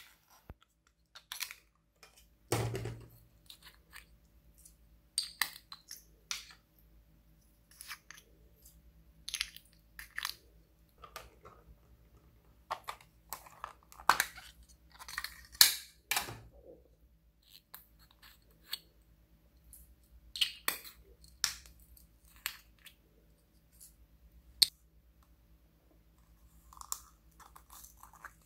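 Small hard plastic cases handled close up: irregular clicks, taps and scrapes as a lid is opened, shut and the case turned in the fingers.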